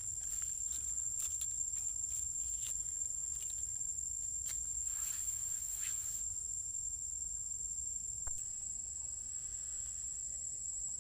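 Steady high-pitched insect drone held throughout, with scattered short crackles that thin out after about six seconds, over a low rumble.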